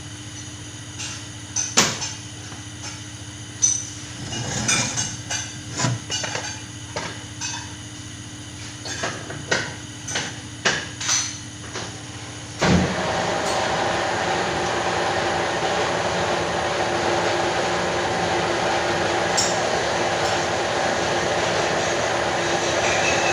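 Sharp metal knocks and clinks, irregular, for about twelve seconds. Then a machine starts abruptly and runs steadily with a loud, even noise and a few held tones.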